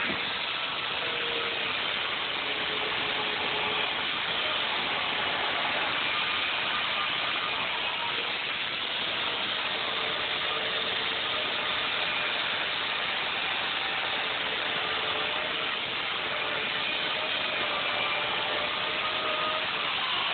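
Electric chainsaw running steadily as it shaves foam, its motor pitch wavering slightly.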